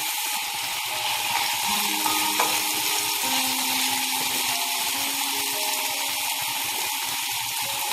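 Raw chicken cubes sizzling steadily in hot oil on an iron tawa while a spatula stirs them.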